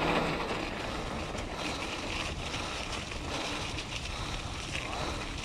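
Mountain bike tyres rolling steadily over a gravelly dirt trail, a continuous rushing noise mixed with wind on the microphone, with a few small ticks and rattles.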